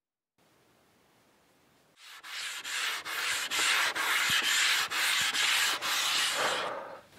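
Sandpaper on a flat wooden sanding block rubbed back and forth by hand over a sealed Bolivian rosewood tabletop with flush brass and ebony inlay strips, in quick, even strokes about two a second. It begins about two seconds in and stops shortly before the end; this is the final flattening of the inlaid top.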